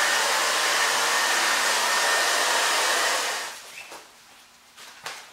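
Handheld hair dryer with a diffuser blowing steadily, switched off a little over three seconds in. Faint rustling and knocks follow as the rubberised fabric waders are lifted and turned over.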